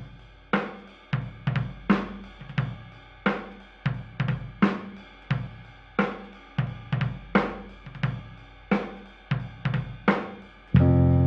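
Background music: a drum-kit beat of snare, bass drum and cymbal hits about one to two a second, joined near the end by louder sustained bass and guitar notes.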